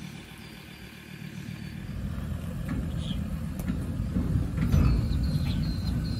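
A vehicle running and driving, a low rumble that grows louder about two seconds in.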